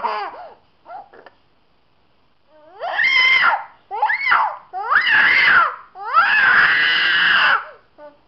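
A young boy crying out in pain. A wail tails off and falls in pitch just after the start, followed by a short lull with a couple of faint whimpers. Then come four loud wails, each rising and falling in pitch, the last one the longest at about a second and a half.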